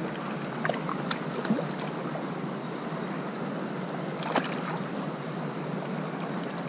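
Steady rush of a small river's flowing water, with a few brief clicks, the sharpest about four seconds in.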